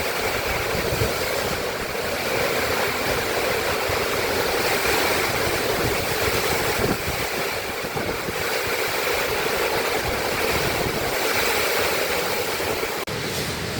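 Heavy rain driven by strong wind in a violent storm: a loud, steady hiss of water and wind that holds without a break.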